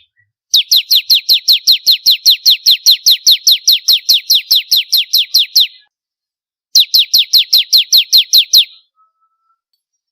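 Bar-winged prinia (ciblek kristal) singing: a fast, even trill of identical high notes, each sliding downward, about five a second. One long run, a short pause, a second shorter run, then it stops.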